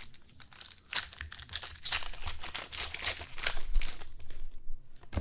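A trading card pack wrapper being torn open and crinkled: a dense crackling starts about a second in and dies away near the end.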